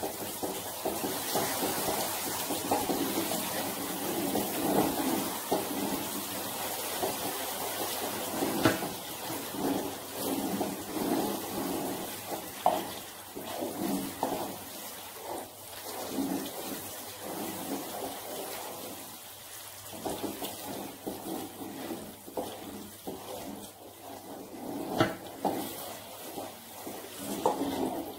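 Butter caramel bubbling and sizzling in a wok over a very low flame, while a wooden spoon stirs and scrapes through it, with an occasional knock of the spoon on the pan.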